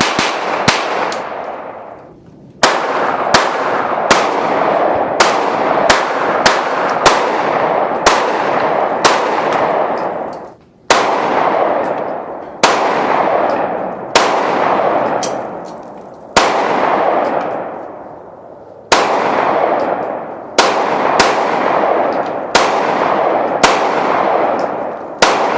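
Gunfire from several guns firing at an outdoor range: irregular single shots and quick strings of shots, each with a sharp crack and a long echo dying away, and a few short pauses between strings.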